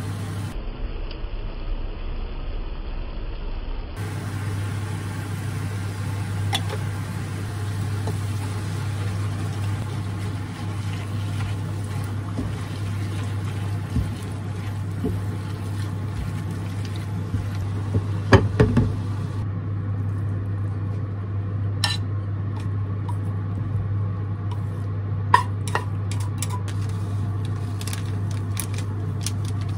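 Stir-frying in a nonstick frying pan: a steady low hum and hiss from the hob and pan under the scraping of a plastic spatula, with a cluster of sharp knocks and clinks of utensils on the pan past the middle and a few more later.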